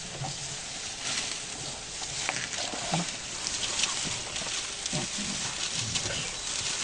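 African elephants grazing close by: grass rustling and snapping as they pull it up with their trunks, with a few low thuds.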